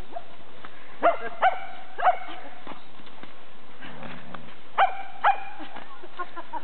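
Dog barking in short, sharp barks, three in quick succession about a second in and two more near five seconds in, excited barking at a toy held up out of reach.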